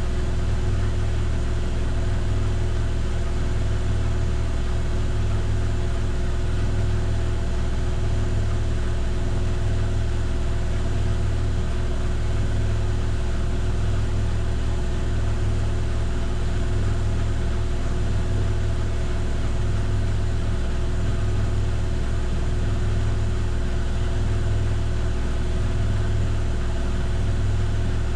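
Miele PW6055 professional washing machine in its final spin, the drum turning steadily at high speed: a constant motor and drum hum with a slow, regular low throb.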